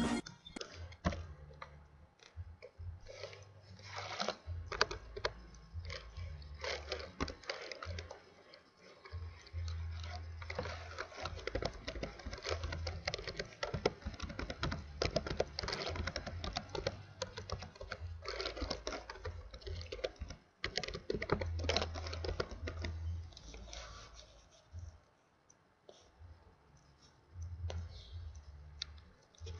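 Someone typing on a computer keyboard: irregular, quick keystroke clicks with short pauses between bursts. A low hum comes and goes underneath.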